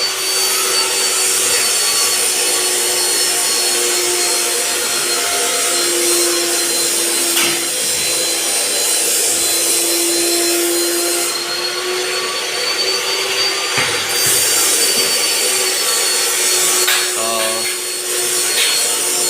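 A power tool's motor running steadily with a constant whine, with a few faint knocks.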